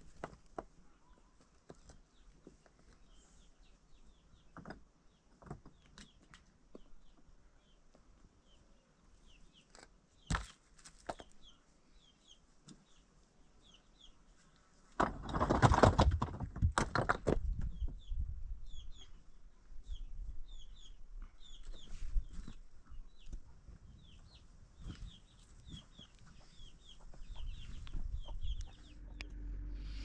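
Loose stones knocking as they are handled and set into a dry-stone wall, with a loud clatter of rocks lasting a couple of seconds about halfway through. Through the second half a bird chirps over and over in short, quick calls.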